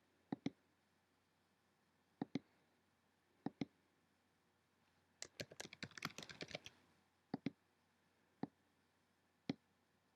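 Computer mouse clicks, mostly in quick pairs like double-clicks, with a short burst of keyboard typing in the middle and two single clicks near the end.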